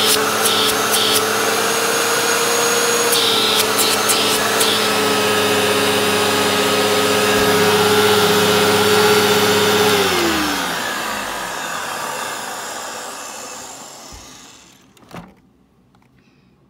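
Eureka Victory upright vacuum cleaner running steadily, its motor sounding okay, with bouts of rapid clicking in the first few seconds. About ten seconds in it is switched off, and the motor whine drops in pitch and fades away, followed by a single sharp click.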